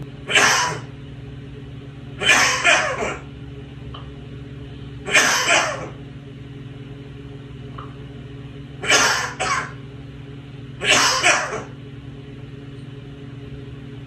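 African grey parrot making coughing sounds: five short cough bouts a few seconds apart, most of them a quick double cough.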